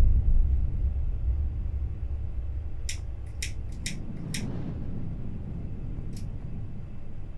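Cigarette lighter's spark wheel flicked four times about half a second apart, about three seconds in, and once more a little later, as a cigarette is lit. A low steady rumble runs underneath, easing off after the first second.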